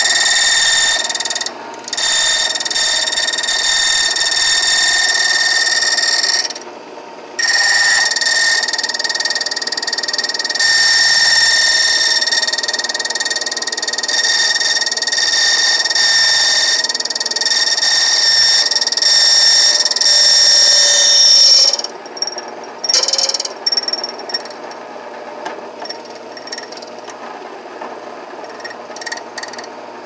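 045 HD key machine's cutting wheel milling a key blank, a loud, high-pitched metal screech that breaks off briefly twice in the first seven seconds. The screech stops about 22 seconds in, leaving quieter scattered clicks and rattles.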